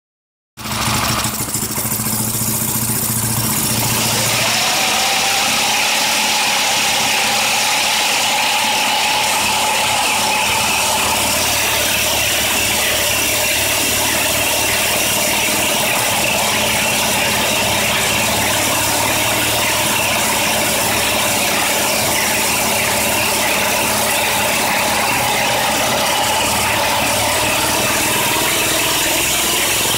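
A small vehicle's motor running and driving its chain-driven rear wheel, spun up off the ground at high speed; the pitch climbs about four seconds in, then holds steady. The rubber tire swells outward as it spins, the cause of lost traction when accelerating.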